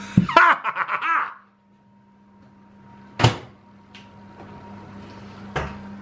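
A man's short wordless vocal sounds, several in a row, in the first second and a half, then a sharp knock about three seconds in and a duller thump near the end, over a steady low hum.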